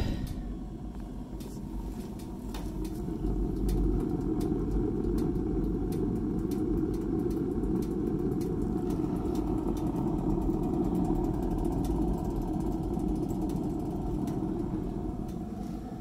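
Gravity-fed wood pellet burner running: a steady low rush of the fan-drawn pellet fire and its exhaust fan, with light crackling from the burning pellets.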